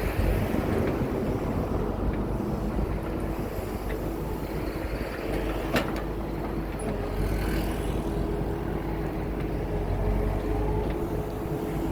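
Excavator's diesel engine running steadily with a low rumble and a steady hum, and one sharp knock about six seconds in.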